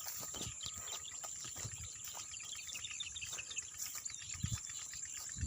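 Birds chirping over a steady high hiss, with a few low thuds.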